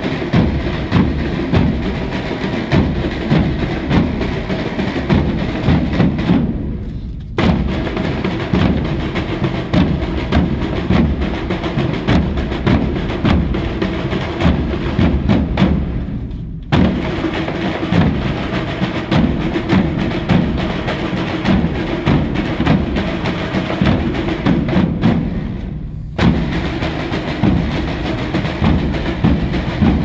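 Portuguese street drum group of bombos (big bass drums) and caixas (snare drums) playing together, deep bass-drum beats under dense snare beating. Three times the sound thins out briefly, then the whole group comes back in at once.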